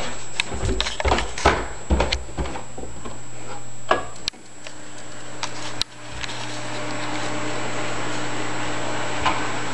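Footsteps going down stairs, then two sharp clicks of wall light switches about a second and a half apart. A steady low hum and hiss of aquarium pumps and sump equipment runs underneath and grows plainer near the end.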